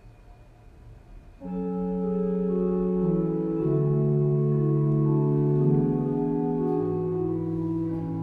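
Church organ starts playing about a second and a half in, a slow introduction of held chords with notes moving within them; a lower bass note joins near the end.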